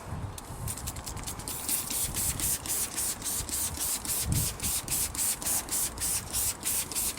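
A brush scrubbing a plastic headlight lens with cleaner, in quick back-and-forth strokes about three to four a second that grow stronger about a second and a half in.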